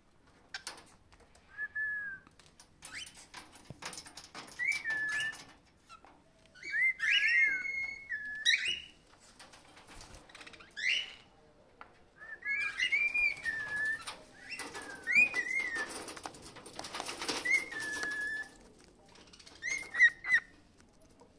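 Pet cockatiels whistling: short phrases of gliding notes that swoop up and down, repeated throughout, mixed with scattered clicks and a short rustling stretch about three-quarters of the way through.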